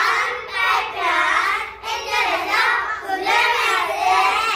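A group of young children's voices chanting together in unison in a sing-song way, in three phrases.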